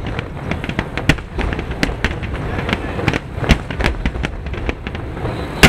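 Finale barrage of aerial firework shells bursting: dense, irregular bangs and crackles, several a second, over a low rumble. The loudest bang comes near the end.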